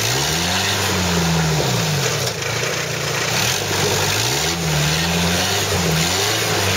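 Trial 4x4's engine revving under load as the vehicle crawls over rocks. The revs climb in the first second, drop near two seconds, then rise again a little after four seconds and hold.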